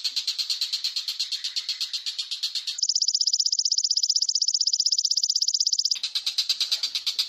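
High-pitched chirping animal calls, pulsing evenly about nine times a second. About three seconds in, they switch to a faster, higher trill that breaks off abruptly about three seconds later, when the slower chirping returns.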